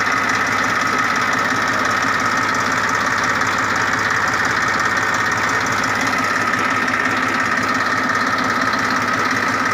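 Massey Ferguson 1035 DI tractor's three-cylinder diesel engine idling steadily.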